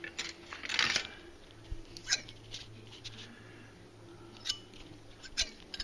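Light clicks and metallic clinks of steel kitchen knives and scissors being handled on a wire rack, about half a dozen spread out, with a short scrape about a second in and one brief metallic ring about four and a half seconds in.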